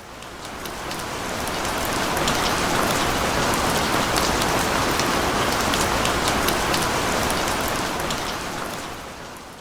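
Steady rain falling, a dense hiss with many small drop ticks, fading in over the first couple of seconds and fading out near the end.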